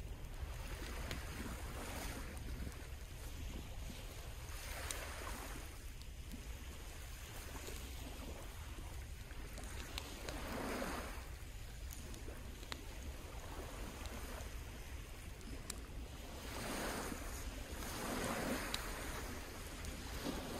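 Sea waves washing onto a sandy shore, swelling and fading every few seconds, over a steady low rumble of wind on the microphone.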